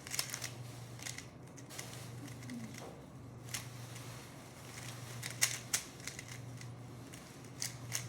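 A 3x3 Rubik's cube being scrambled by hand: quick, irregular clicks of the plastic layers turning, over a steady low hum.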